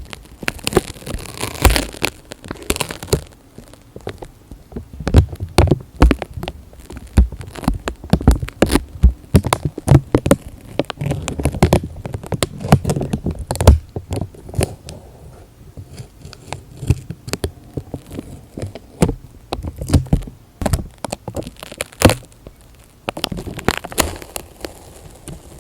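Close-miked ASMR trigger sounds: a dense, irregular run of crackles, clicks and sticky taps, with soft low thumps mixed in.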